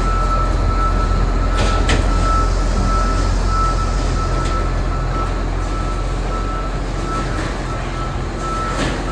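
Heavy diesel engine of a motor grader running steadily with a deep rumble, a thin high tone running above it with short breaks, and a couple of faint clicks.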